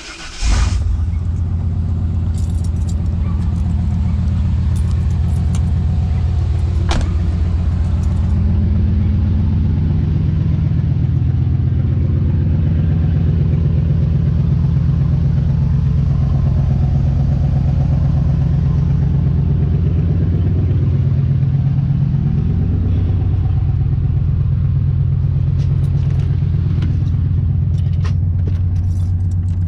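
Car or truck engine catching about half a second in, then running at a steady idle, its pitch shifting slightly a few times.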